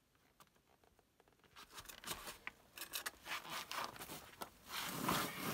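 Backpack and clothing scraping and rubbing against sandstone as a hiker squeezes through a narrow rock crack. The scraping starts about two seconds in and is loudest near the end.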